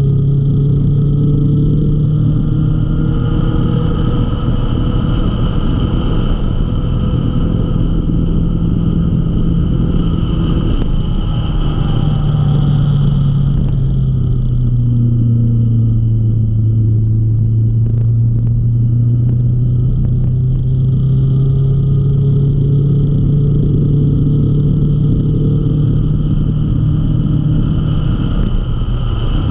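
Motorcycle engine running steadily at cruising speed, with wind rush on the microphone. The engine note drops about halfway through as the bike eases off, then climbs back as it speeds up again.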